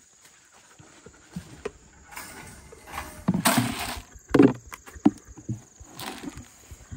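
A plastic scoop digging into grain feed in a plastic bucket, the feed rustling and pouring in several short bursts, the longest about three and a half seconds in, with a knock just after.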